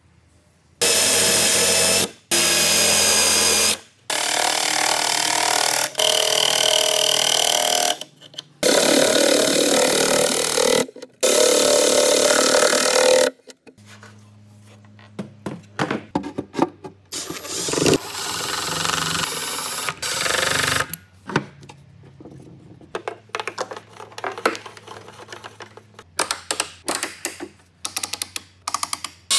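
Several loud power-tool runs, each a few seconds long and cut off abruptly, during the first half. After that, a quieter stretch of knocks and clicks from handling wooden parts over a low steady hum.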